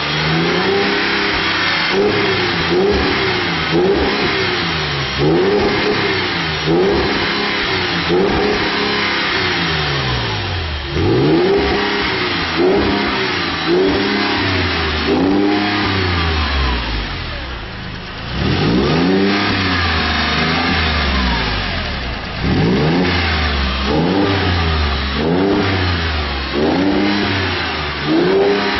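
Porsche 996 Carrera 4 flat-six engine free-revving through a Super Sprint stainless steel sports exhaust. The throttle is blipped over and over, roughly once a second, each rev rising and falling. Around two-thirds of the way through it drops back briefly before longer revs. The exhaust note is a lot deeper.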